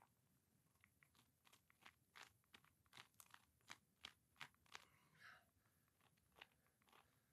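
Faint crunching of gravel under feet and hands: a string of small crunches and clicks, thickest between about one and five seconds in.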